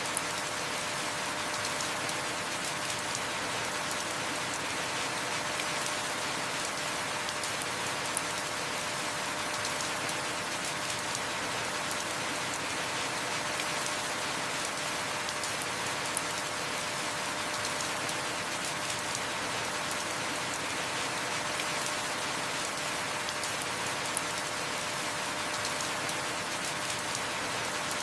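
Heavy rain falling steadily: an even hiss of rain on surfaces, with a few sharper drop clicks about every eight seconds.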